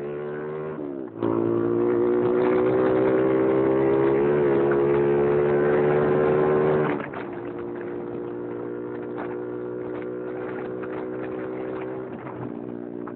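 Motorcycle engine heard from on board while riding. It breaks off briefly about a second in, then runs louder at a steady pitch until about seven seconds in. There it eases off and runs quieter.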